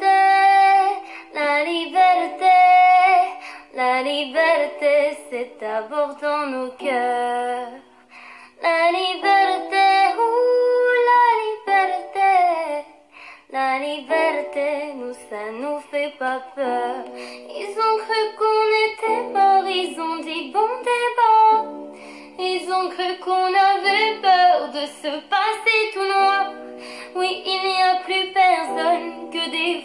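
Music: a high voice singing a melody, with little bass underneath.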